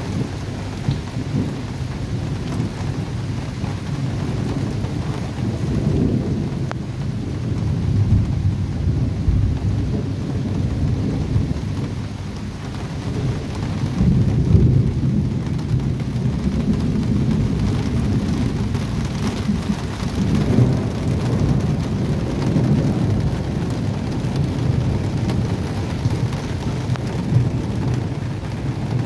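Thunder rumbling in long, swelling rolls over steady rain, the loudest roll about halfway through.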